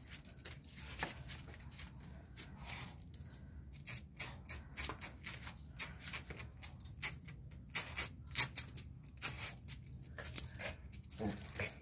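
A small dog moving about on concrete, making irregular sharp clicks that come sparsely at first, then in quick runs from about four seconds in.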